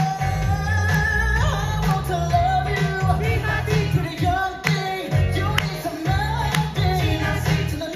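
Live stage-show pop music: a man singing over loud backing music with a heavy, pulsing bass beat.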